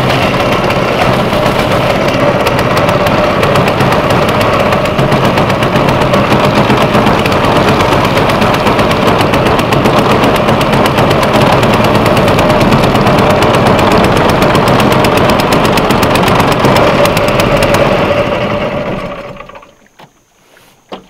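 Long-tail mud motor running loud and steady with a rapid, rattling exhaust beat, under load towing a swamped bass boat on a line. Near the end it dies down and stops.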